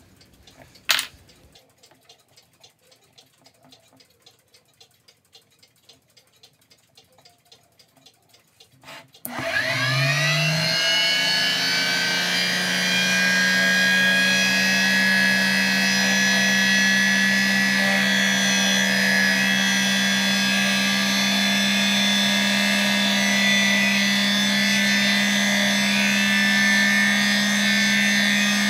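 Mini lathe's electric motor switched on, winding up with a rising whine over two or three seconds and then running at a steady speed. Before it starts there are faint handling clicks and one sharp click from the tool being set in the tool holder.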